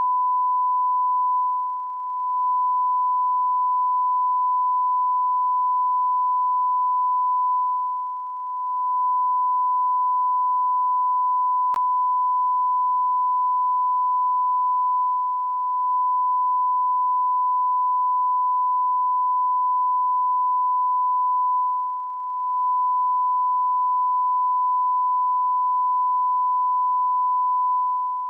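A continuous electronic beep: one steady, pure high-pitched tone that dips briefly in volume every six or seven seconds.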